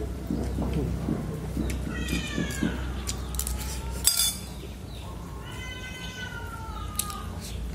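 A cat meowing twice, two long drawn-out meows that fall in pitch, with a sharp clink of chopsticks against a bowl between them.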